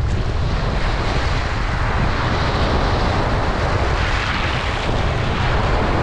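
Shallow waves washing in over wet beach pebbles, a steady hissing wash that swells about a second in, over a low rumble of wind on the microphone.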